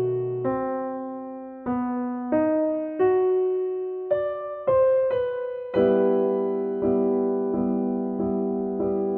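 Background piano music: a slow melody of single struck notes, moving into repeated chords a little past halfway.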